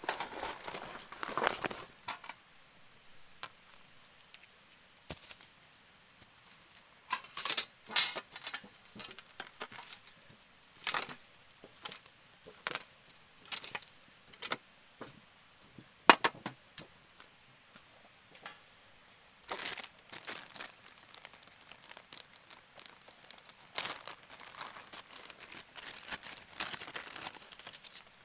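Intermittent crinkling and crackling handling noises, with scattered sharp clicks; the sharpest comes about two-thirds of the way through.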